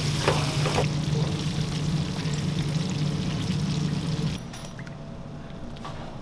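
Hot frying oil draining and dripping from a lifted wire fryer basket of fried chicken back into the deep fryer, with a steady low hum under it. A few light clinks come near the start, and the sound stops abruptly about four seconds in, leaving a quieter kitchen background.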